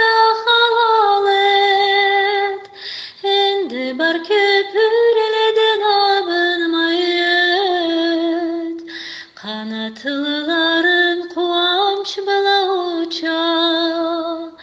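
A woman singing a Karachay-Balkar song in long, held notes that glide between pitches. She pauses briefly for breath between phrases, about three seconds in and again about nine seconds in.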